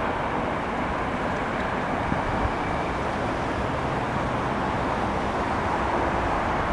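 Manifest freight train rolling by: a steady rumble and rushing noise from the cars passing on the rails.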